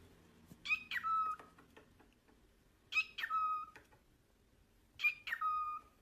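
Cockatiel calling three times, about two seconds apart: each call is a short whistle-like call that drops in pitch and ends on a held lower note.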